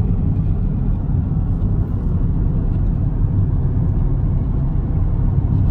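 Car interior noise while driving on the road: a steady low rumble of engine and tyres heard from inside the cabin.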